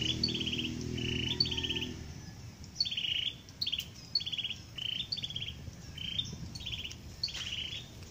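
Small songbird calling over and over, each call a short high note followed by a quick buzzy trill, about once or twice a second. A low droning hum sits underneath and fades out about two seconds in.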